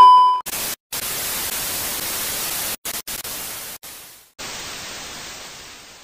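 A loud steady beep tone that cuts off within the first half second, then television static hiss that drops out briefly several times and fades away near the end.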